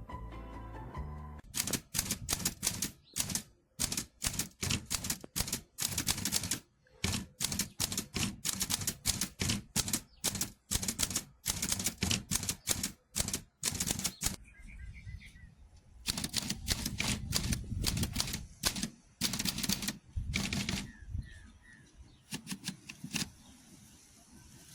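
Smith-Corona Clipper manual typewriter being typed on quickly, a rapid clatter of typebar strikes in two long runs with a short pause between, thinning out to a few strikes near the end.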